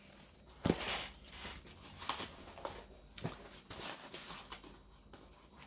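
Quiet rustling and a few light knocks as a cardboard mailer box is handled, the sharpest knock about a second in.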